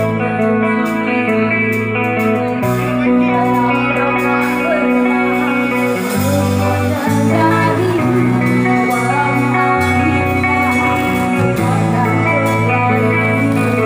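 Live band music, loud through a PA: women singing over electric guitar and drums.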